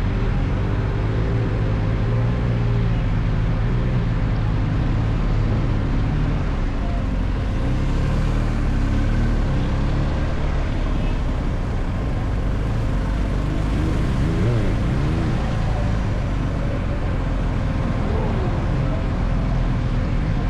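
Steady low rumble of a car's engine and tyres on the road, heard from inside the car.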